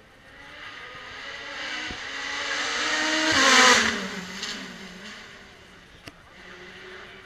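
Race car passing by: its engine grows louder over about three seconds, peaks as it goes past with the pitch dropping, then fades away.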